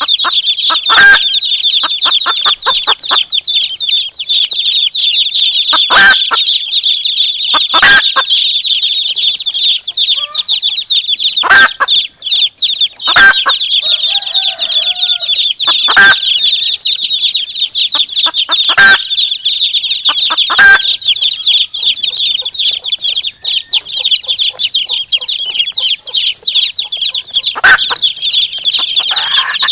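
A brood of domestic chicks peeping continuously in a high, rapid chorus, with a hen's short, sharp clucks breaking in about nine times at irregular intervals of a few seconds.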